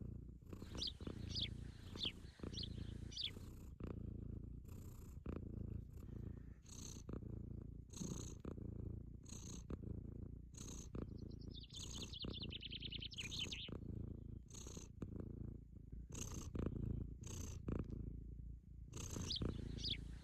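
Sphynx cat purring steadily and close up. Birds chirp in the first few seconds, and a fast trill comes in from about eleven seconds in.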